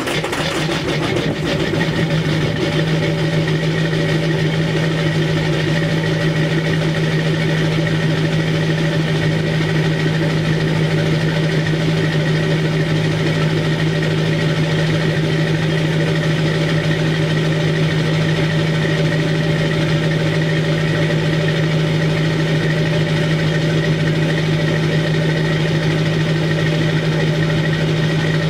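LB7 Duramax 6.6-litre V8 turbo-diesel in a 2002 Chevy 2500HD, idling just after a cold start, heard at the tailpipe with the resonator deleted. The idle rises slightly in the first second or two, then holds steady.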